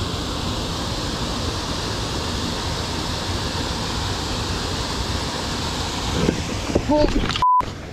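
Steady rush of water pouring over a small concrete spillway weir and out of a culvert. Near the end comes a short cry, then a brief loud beep of a censor bleep.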